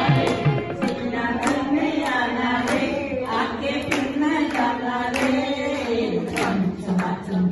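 People singing a devotional-style song together, with hand claps keeping a steady beat a little under twice a second.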